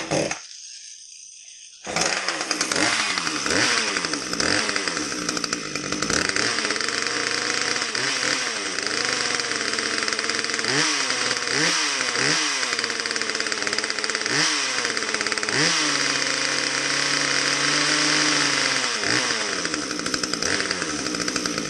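Husqvarna T540 top-handle chainsaw's two-stroke engine starting about two seconds in and running with the bar and chain off. Its revs dip and rise several times in the middle, then it is held high. It is run this way to test the oil pump, which is delivering no oil.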